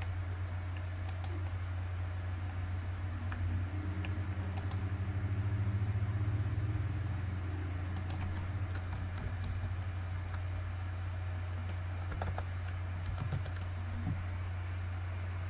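Computer keyboard typing and clicks, coming as scattered taps with a few small clusters, over a steady low hum.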